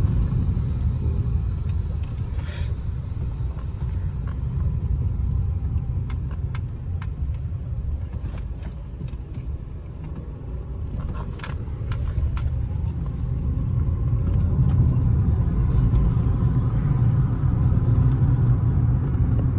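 Fiat 500 engine and road noise heard from inside the cabin: a steady low rumble that eases off as the car slows to a crawl about halfway through, then builds again as it speeds back up.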